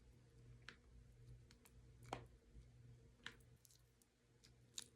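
Near silence with four faint, sharp clicks spread over a few seconds, from a Samsung Galaxy Z Flip 6 folding phone being handled and folded; the hinge gives no creak.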